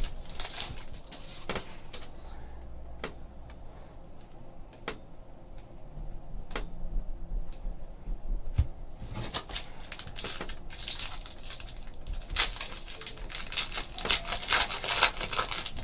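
Trading card packs and cards being handled: scattered light clicks and flicks, growing busier and more crackly about halfway through.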